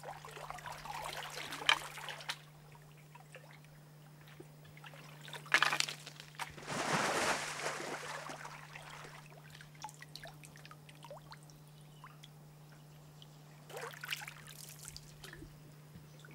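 A hand paddle dipping and pulling through calm water from an inflatable dinghy, with trickling and dripping as the blade lifts. The strokes come as a few separate splashes, the longest and loudest about seven seconds in.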